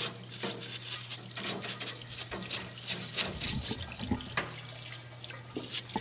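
Dirt being scrubbed off an old AC mechanical fuel pump in running liquid: a quick series of brush strokes with splashing and dribbling, over a steady low hum.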